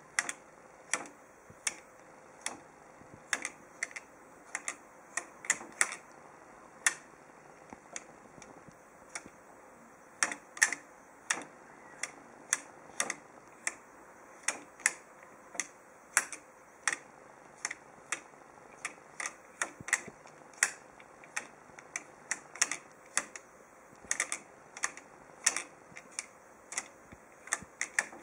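Beads of a Chinese abacus (suanpan) being flicked up and down by fingers while adding the numbers one to twenty-four. They make an irregular run of sharp clicks, about two or three a second.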